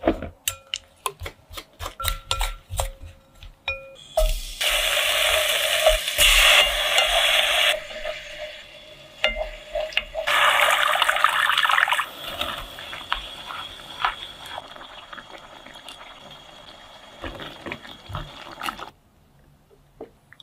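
Cooking sounds: quick taps and clicks of stirring flour in a glass bowl. Then about three seconds of loud rushing hiss and a second, shorter burst a few seconds later as tomato sauce cooks in a pot. These settle into a quieter steady hiss with light taps of stirring, which stops shortly before the end.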